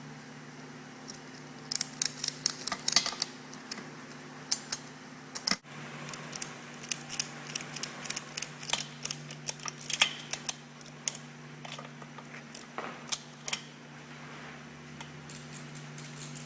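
Metal ratchet-strap hooks and D-rings clinking and clicking irregularly as the straps are hooked on and handled, over a steady low hum.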